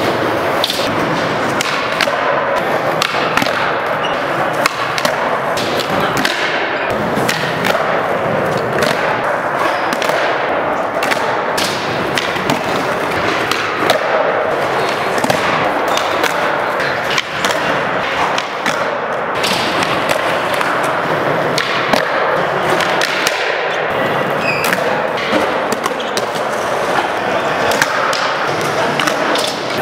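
Skateboard wheels rolling on a smooth concrete floor, with repeated sharp clacks and thuds of the board popping and landing during flatground tricks.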